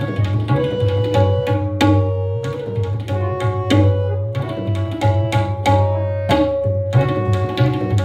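Tabla solo in jhaptaal, the ten-beat rhythmic cycle: a dense run of strokes on the ringing, tuned right-hand drum and the deep left-hand bass drum. A held melodic accompaniment (lehra) repeats behind it.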